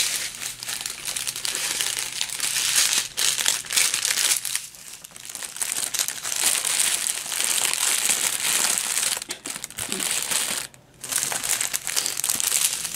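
Small clear plastic bags of diamond-painting drills crinkling steadily as they are handled and sorted, with two brief lulls, one about halfway and one near the end.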